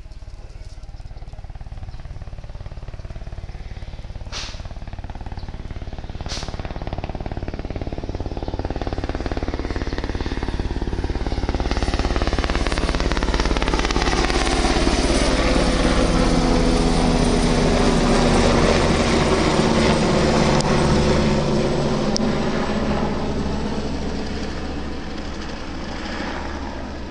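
Airbus AS 332L Super Puma twin-turbine helicopter passing close by: rotor beat and turbine whine grow steadily louder, peak about two-thirds of the way through, then fade as the pitch drops. Two brief sharp clicks sound about four and six seconds in.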